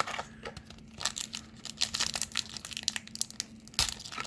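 Foil wrapper of a hockey card pack crinkling and tearing as it is opened by hand, a quick run of sharp crackles.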